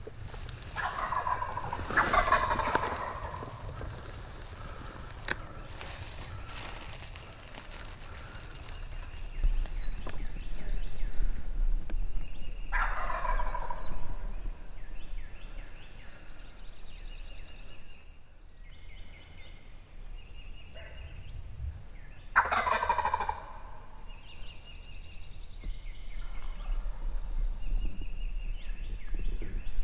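Wild turkey gobbler gobbling from its roost, three loud rattling gobbles roughly ten seconds apart. Small songbirds chirp throughout.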